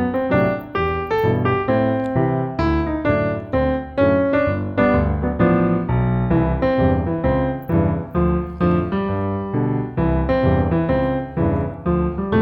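Background piano music: a steady run of notes, about three to four a second.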